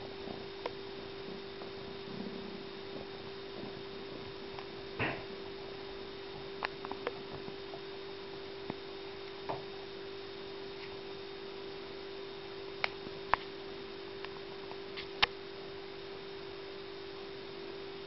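A steady low electrical hum on one pitch, with a dozen or so sharp clicks scattered through it, the loudest two about three-quarters of the way in.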